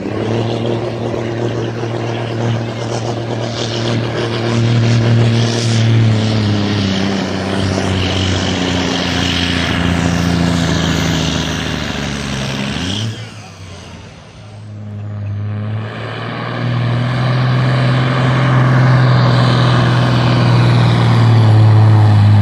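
Semi truck's diesel engine working hard under load, pulling a weight-transfer sled. About thirteen seconds in, the engine note drops and goes quieter for a couple of seconds, then climbs back up and runs louder.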